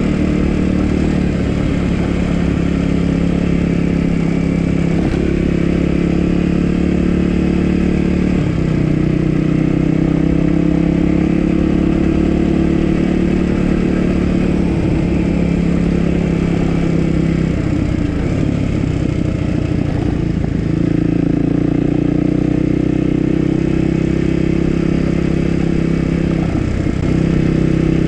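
Dirt bike engine running under way, loud and continuous, its note stepping up and down several times with the throttle.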